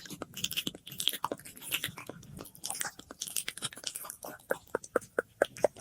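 Close-up ASMR mouth sounds: a rapid run of wet clicks and smacks, with an echo effect.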